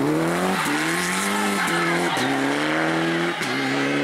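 Turbocharged four-cylinder engine of a Mitsubishi Lancer Evolution rally car accelerating hard. The engine note climbs and drops back sharply at each of about three upshifts.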